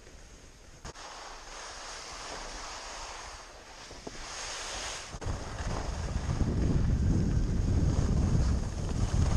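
Skis hissing and scraping over packed snow through the turns. About five seconds in, heavy wind buffeting on the camera's microphone takes over as a loud low rumble, as the skier picks up speed.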